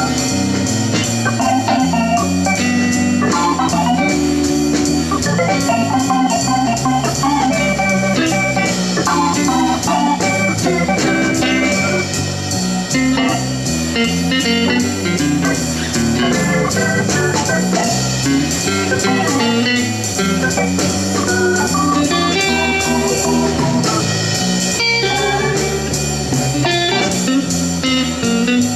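Organ and guitar music played back from a cassette on a Crown CSC-950L radio cassette recorder, testing its repaired tape transport.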